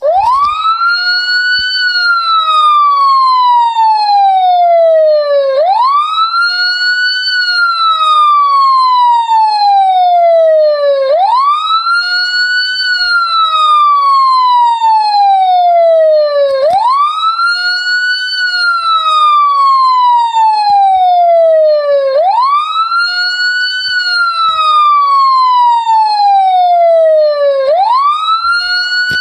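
Police siren ringtone on a slow wail: each cycle sweeps up quickly, then glides slowly down over about four seconds, repeating evenly about every five and a half seconds.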